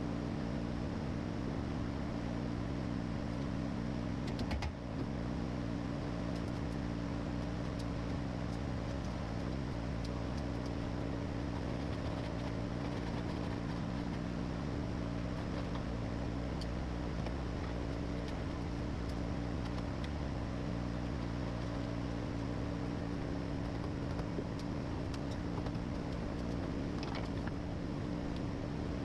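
A steady machine hum with several low tones held level throughout, and a few faint clicks.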